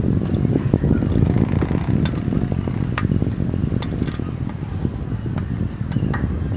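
Wind buffeting the microphone high on a cell tower, a steady rough rumble, with a few scattered sharp clicks or taps.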